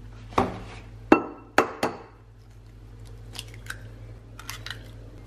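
Eggs being cracked into a ceramic bowl: four sharp knocks in the first two seconds, then a run of lighter clicks and crackles as the shell is pulled apart.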